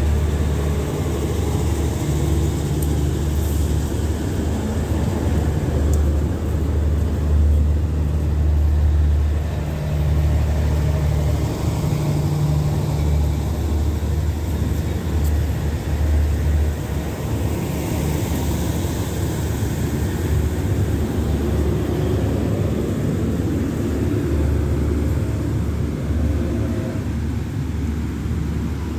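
State Railway of Thailand passenger train pulling out of the station, its coaches rolling past close by with a steady, loud low rumble and hum that holds throughout.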